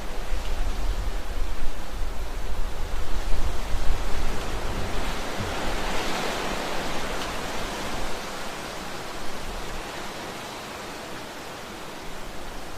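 Heavy rain as a steady, dense hiss, with a deep low rumble under it for the first few seconds. About five to seven seconds in, the hiss swells and then eases off.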